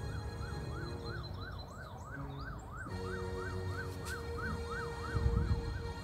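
A siren rising and falling quickly, about twice a second, over background music of long steady synth chords that change about halfway through. A short low rumble comes about five seconds in.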